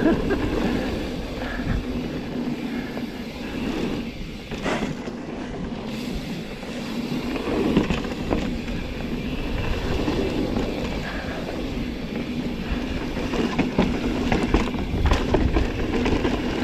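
Mountain bike rattling down a rough trail: a steady clatter of the bike and its tyres over rocks and roots, with scattered sharp knocks.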